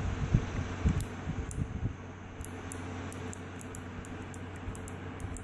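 Faint plastic clicks and knocks as the buttons of a removed four-button push-button switch array are handled and pressed, mostly in the first two seconds, over a steady low hum. The switches are worn out: they stick and often fail to push in and latch.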